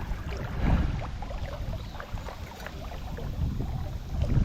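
Wind rumbling on the microphone over water around a kayak, with a few light knocks, the loudest about a second in and near the end.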